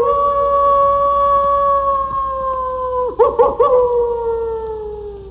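A single wolf howling: one long held note that slowly falls in pitch, breaks into a brief warble about three seconds in, then slides lower and fades out.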